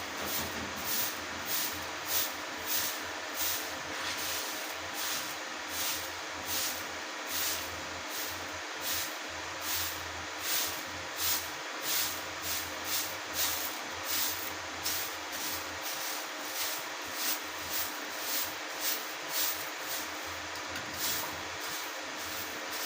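Rhythmic swishing strokes, about one and a half a second, each a short brushy hiss, over a steady background hiss.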